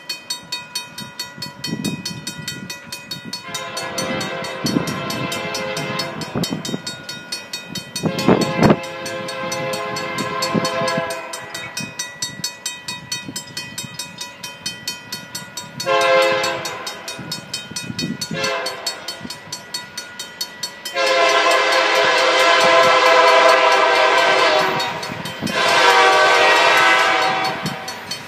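Union Pacific diesel freight locomotive approaching and blowing its horn in a series of long blasts with one short blast, the last two long blasts the loudest as the train draws near. Underneath, a grade-crossing bell dings steadily, about two to three strikes a second.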